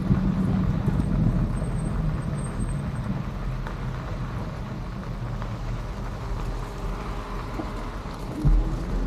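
Steady riding noise from an electric bike: a low rumble of motor and tyres on the ground that eases off a little, with one sharp thump near the end.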